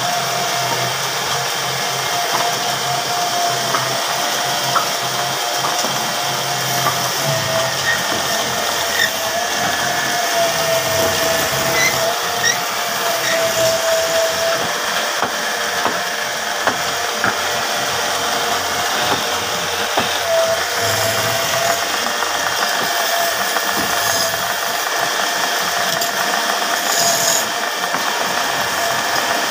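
Wood lathe running steadily as it spins a cot leg, with a wavering whine while a stick of coloured lacquer and then a polishing pad are pressed against the turning wood.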